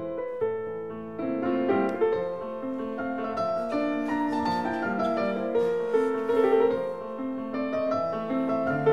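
Background piano music, a slow piece of held notes and chords.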